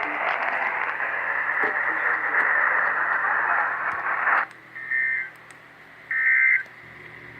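Weather radio receiver hissing with static, which cuts off abruptly about four seconds in. Then come short warbling data bursts of the Emergency Alert System's SAME code, two half-second bursts about a second apart with a third beginning at the end, marking an alert message boundary.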